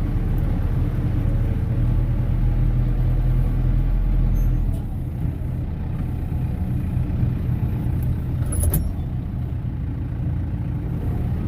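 Diesel tractor engine running steadily, a little louder for the first few seconds and easing off about five seconds in, with one short knock near the end.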